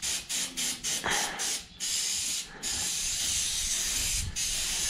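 Rapid pulsing hiss, about five pulses a second, that turns into a steady spraying hiss about two seconds in, with a brief break, as grease is put onto a bearing race.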